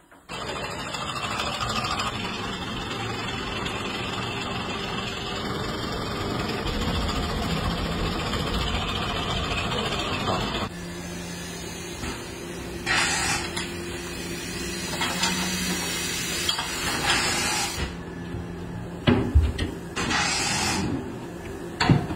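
Tyre-retreading curing mould venting its pressure with a loud, steady hiss for about ten seconds, which then drops away. A low steady hum follows with several short bursts of hiss as the mould opens, and a few sharp metal knocks come near the end.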